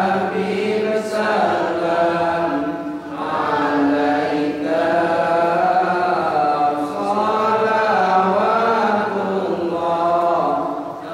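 A man's voice chanting Islamic devotional verse into a microphone, in long held notes that bend and waver in melodic ornaments, with a short break about three seconds in and another near the end.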